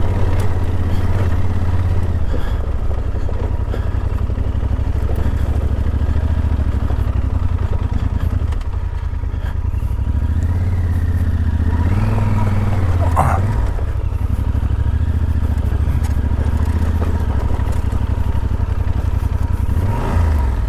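Yamaha Super Ténéré adventure motorcycle's parallel-twin engine running while riding a rough dirt track, its note shifting with the throttle partway through. Scattered short knocks and clatter come from the track.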